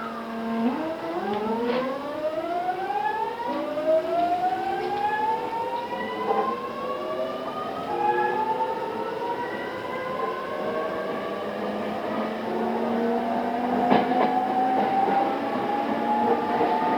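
JR East E217 series electric train accelerating, heard from aboard a motor car. Its GTO-thyristor VVVF inverter and traction motors give a siren-like whine of several tones that rise in pitch and change pattern in steps as speed builds, over growing wheel and running noise, with a few knocks.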